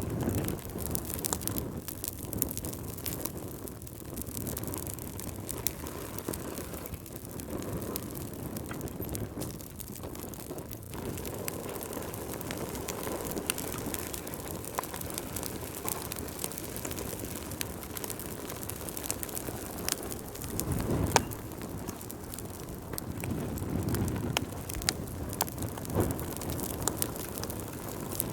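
Wood fire burning in a fireplace, crackling and popping steadily with many sharp snaps, the low rush of the flames swelling briefly twice near the end.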